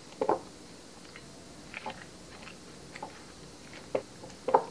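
Spatula tossing coleslaw of shredded cabbage, carrot and bacon in dressing in a glass bowl: irregular soft, wet crunches and scrapes, loudest near the start and again near the end.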